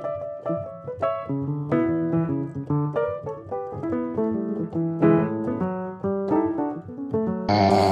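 Background piano music, a steady run of struck notes. Near the end a loud rushing noise cuts in over it.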